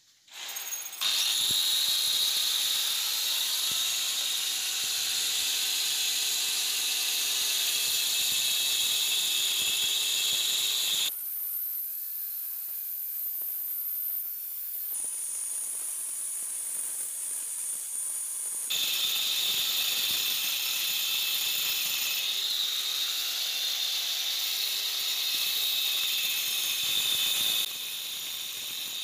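Angle grinder fitted with two cutting blades side by side, cutting a groove into a plastered brick wall: a loud, high-pitched grinding whine whose motor note sags and recovers as the blades bite. The sound drops to a thinner, quieter whine about a third of the way in and again near the end.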